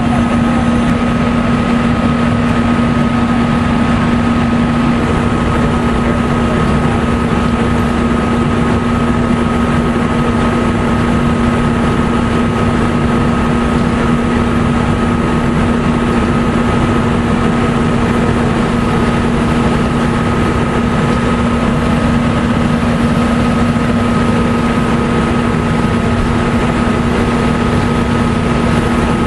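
An engine running steadily at a constant speed, with an even drone and a steady hum that do not change. It is most likely a fire engine idling or pumping at the scene.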